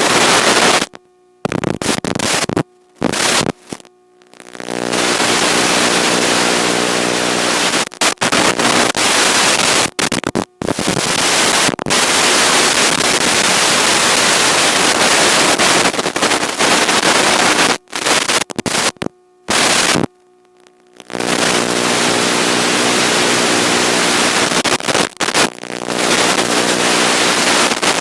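Loud static hiss with an underlying buzz from an analog FPV video receiver's audio channel, which carries no sound from the plane. It cuts out abruptly to near silence several times, most clearly about a second in, around four seconds, and for about a second and a half near twenty seconds.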